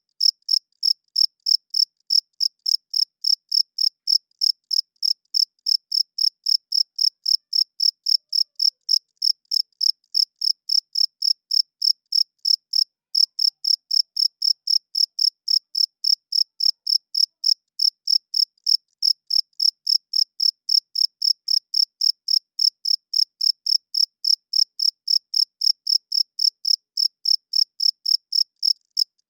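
Cricket chirping in an even, unbroken rhythm of about three short, high-pitched chirps a second.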